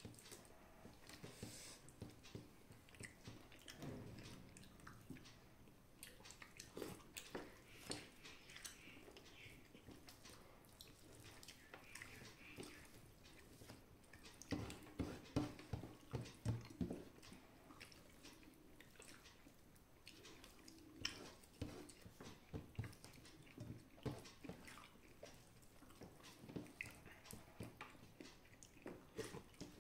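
Faint eating sounds: chewing, with soft wet clicks of fingers mixing rice and dal on a steel plate, and a run of louder clicks about halfway through.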